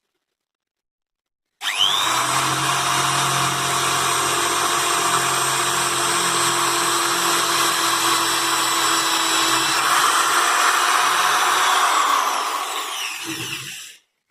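Velex 300-watt corded electric drill switching on about a second and a half in, whining quickly up to speed and running steadily with a wood bit boring into a thick wood block, then winding down to a stop near the end.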